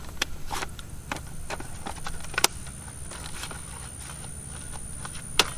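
A few scattered sharp clicks and knocks as a cordless reciprocating saw with a long pruning blade is handled and drawn out of a log. The saw's motor is not running: the tool has cut out from overheating.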